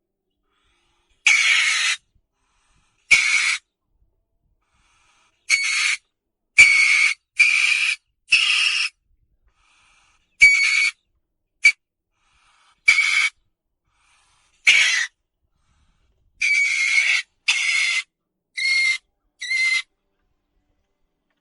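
A series of about fourteen short, harsh, hissing animal calls, each under a second long, with full silence between them.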